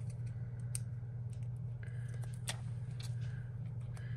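Scattered light clicks and a soft crinkle of a paper sticker being handled and pressed onto a journal page, over a steady low hum.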